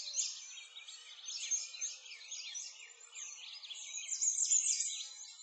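A dense chorus of small birds chirping and singing at once, many quick rising and falling chirps overlapping, a little louder about four seconds in.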